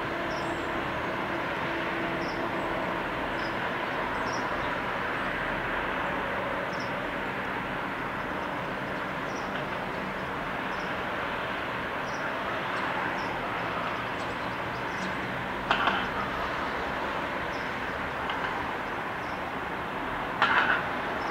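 Steady distant vehicle noise, an even wash of rumble and hiss with a faint hum and a light high tick about once a second. Two short, louder sharp sounds break in near the end, a few seconds apart.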